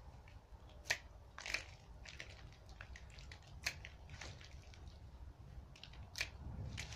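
Hand pruning shears snipping the shoots of a chamaecyparis (false cypress): about five sharp snips a second or two apart, some with a crunch as the twigs and foliage are cut.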